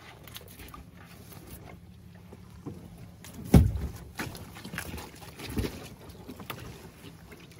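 Lumpfish being picked from a gill net and dropped into a small open boat: scattered knocks and rustling from the net and hull, with a heavy thud about three and a half seconds in and a smaller one about two seconds later.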